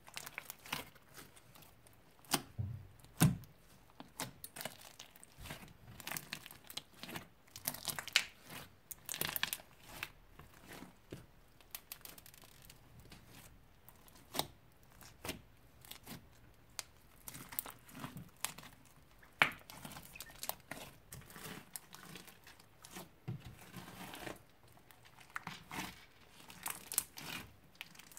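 Old, partly dried slime being kneaded, squeezed and pulled apart by hand: a dense run of irregular sticky crackles, clicks and tearing sounds, with a couple of louder snaps about 3 s and 19 s in.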